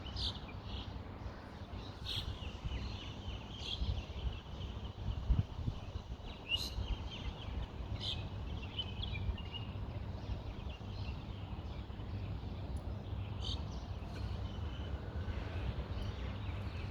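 Birds chirping in short, scattered calls every second or two over a steady low rumble of wind on the microphone.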